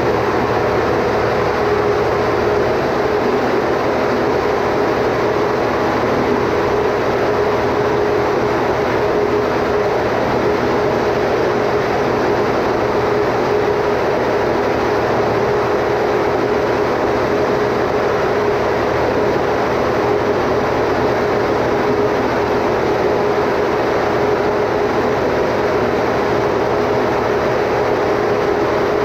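Standby generator running steadily: an even engine drone with a constant hum that does not change in pitch or level.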